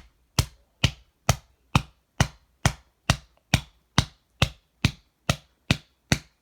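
A long run of sharp, evenly spaced strikes, about two a second, as something is hit over and over.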